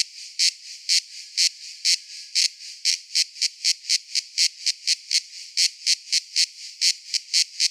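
Cicada calling in a train of short, sharp high-pitched pulses, quickening from about two a second to about four a second.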